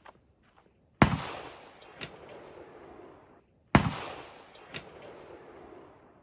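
Two sudden heavy booms about three seconds apart, each a low thump trailing off in a long fading hiss.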